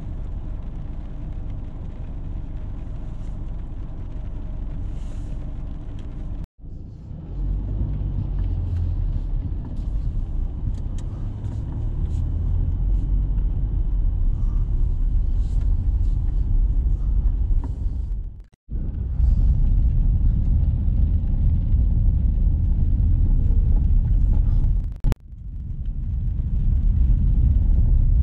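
A car driving, with a steady low rumble of engine and road noise. The sound cuts out for an instant three times.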